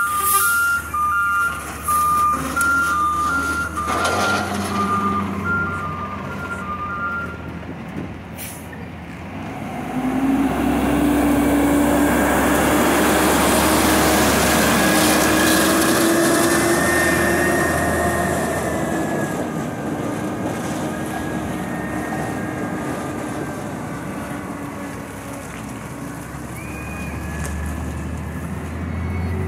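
Peterbilt 320 front-loader garbage truck's reverse alarm beeping steadily, then, about ten seconds in, its engine revving up loudly with a slowly rising pitch as the truck pulls off and passes by, fading as it drives away.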